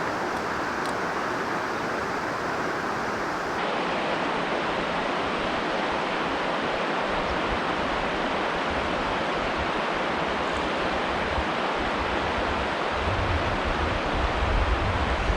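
Steady rush of river water flowing over a drop. A low rumble comes in over the last few seconds.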